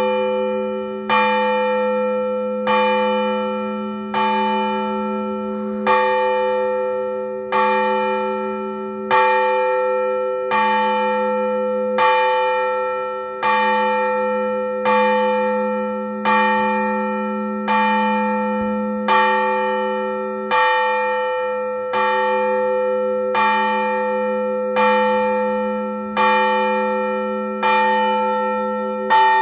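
Orthodox church bell struck in slow, even strokes, about one every one and a half seconds, with each stroke ringing on into the next. This single-bell tolling is the blagovest that calls people to a service.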